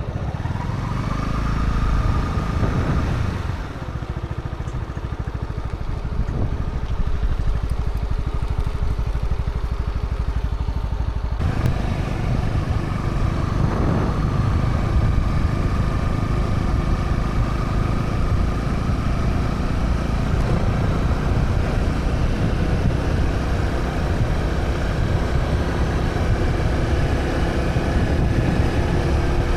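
Honda CB125R's single-cylinder 125 cc engine through its stock exhaust while riding: it rises in pitch as the bike accelerates over the first few seconds, drops briefly, then carries on with the engine note rising and falling gently.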